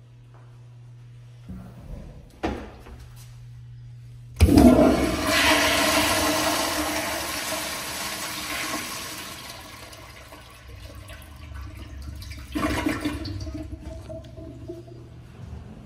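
Commercial flushometer-valve toilet flushing. A sudden loud rush of water starts about four seconds in and fades over several seconds, with a second, shorter surge near the end.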